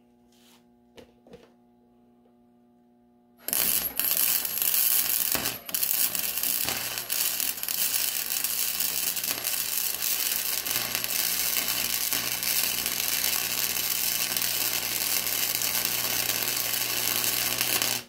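MIG welder arc crackling and sizzling steadily, laying weld onto a snapped engine flywheel bolt to build it up for extraction. It starts suddenly about three and a half seconds in, breaks off briefly near six seconds, and cuts off suddenly at the end.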